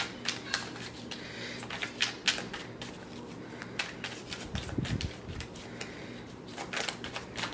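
A deck of oracle cards being shuffled by hand: a run of irregular soft card slaps and clicks.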